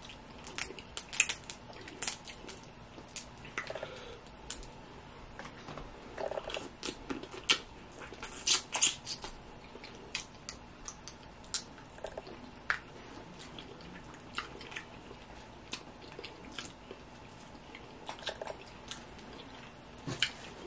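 Steamed blue crab being picked apart by hand and eaten: irregular shell cracks and clicks as the meat is pulled out, with chewing and mouth smacking. The cracks come thickest about eight to nine seconds in.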